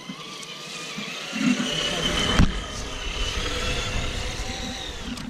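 Traxxas TRX-4 RC crawler running: its small electric motor and gears whine, the pitch wavering with the throttle, over a low rumble, with one sharp knock about two and a half seconds in.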